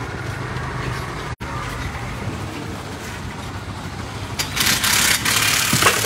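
A steady low engine hum with a brief dropout about a second and a half in. From about four and a half seconds in, loud stretches of hissing noise cover it.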